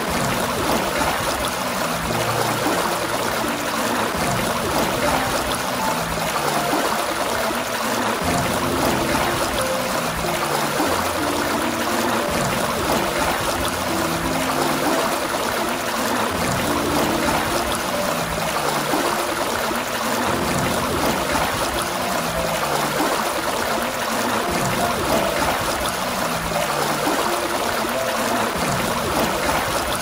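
Water gushing steadily from a fountain spout, an even rushing and splashing flow with low gurgling notes that shift in pitch.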